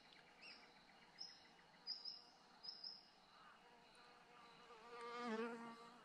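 A fly buzzing past close by for about a second and a half, about five seconds in, swelling and fading as it passes. Otherwise quiet bush, with a few short, faint, high bird chirps in the first three seconds.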